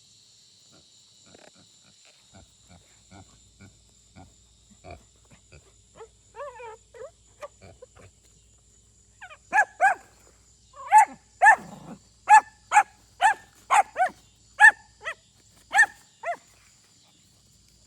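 A dog barking, about a dozen sharp barks a little over two a second, starting about halfway through after faint scattered taps.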